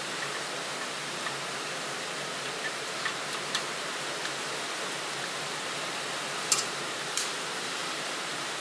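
A steady hiss with a few sharp, light clicks from hands handling a small metal petrol stove and a lighter; the two loudest clicks come about six and a half and seven seconds in.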